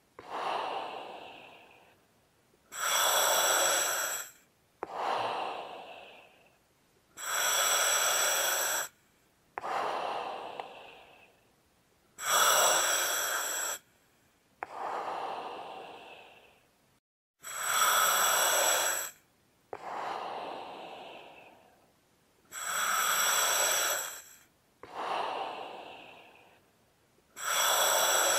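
Slow, heavy breathing repeating about every five seconds. Each breath is a loud, hissing inhale of about two seconds that stops sharply, followed by an exhale that falls in pitch and fades away.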